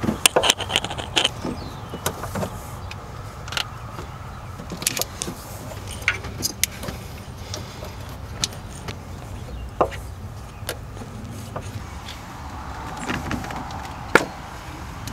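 Hands working spark plug wires and their boots in a Chevy 6.0L V8's engine bay: scattered sharp clicks and rattles as the parts are handled.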